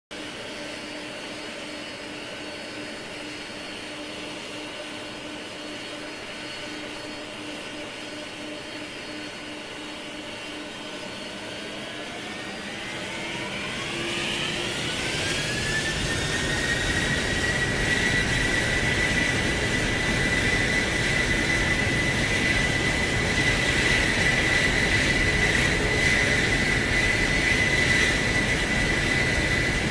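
Stratolaunch's Pratt & Whitney PW4056 turbofan engines running at idle with a steady whine, then spooling up: about twelve seconds in, the whine rises in pitch over some five seconds and settles into a louder, steady high whine over a growing rush of jet noise.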